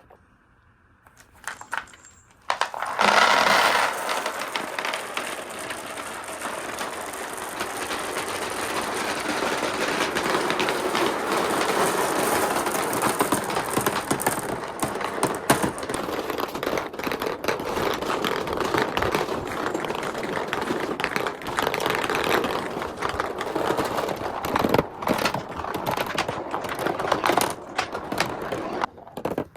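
Many balls rolling and clattering through a handmade marble run: a dense, continuous rattle of small clicks and knocks that starts about three seconds in, after a brief quiet.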